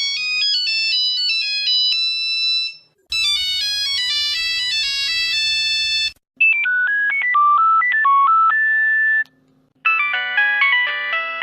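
Nokia phone ringtones played one after another: four short electronic melodies of about three seconds each, separated by brief gaps, each in a different sound, from high thin beeps to a fuller version with several notes at once.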